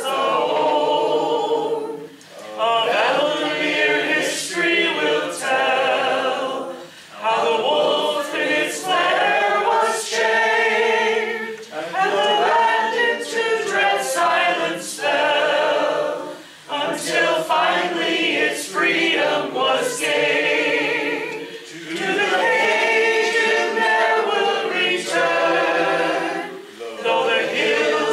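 A group of men and women singing a song together without instruments. The lines are broken by short breathing pauses about every five seconds.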